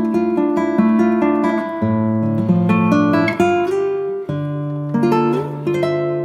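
Background music: acoustic guitar playing plucked and strummed chords with changing bass notes.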